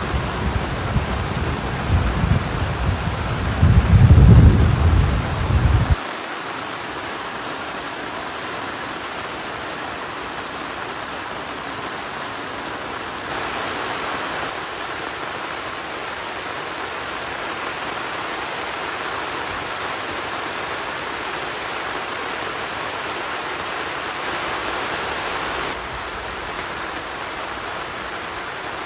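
Thunder rumbling over heavy rain, loudest about four seconds in, then cutting off abruptly about six seconds in. Steady rain follows.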